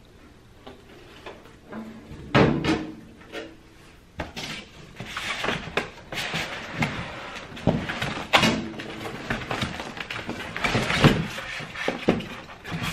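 A toaster oven and its cardboard packaging being handled during unpacking: irregular knocks and bumps of metal and cardboard with rustling in between, the loudest knock about two seconds in.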